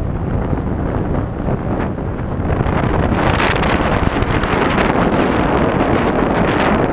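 Heavy wind buffeting the microphone of a camera riding on a moving scooter, a steady loud rush that drowns out the scooter's engine.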